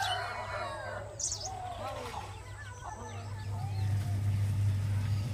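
Village chickens calling and small birds chirping, many short calls overlapping in the first half. A steady low hum grows louder from about three seconds in.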